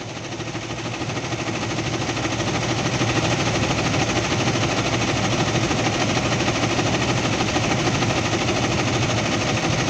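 Diesel engine of a GAZ Valdai light truck running with a knock that the driver suspects is a failing injector. It swells over the first few seconds, then holds steady.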